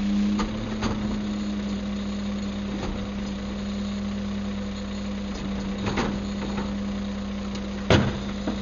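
CCC Wittke manual side loader garbage truck's engine running steadily while a wheeled garbage cart is tipped upside down over the hopper and lowered again, with a few short knocks as it empties and a loud bang near the end as the cart comes back down.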